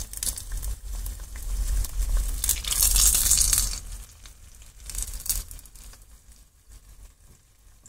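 Hot oil sizzling and crackling around a battered cookie deep-frying in a pot. It swells to its loudest about three seconds in, then dies down.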